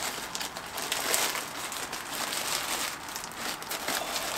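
White plastic poly mailer bag crinkling and rustling in the hands as it is opened and the contents are pulled out.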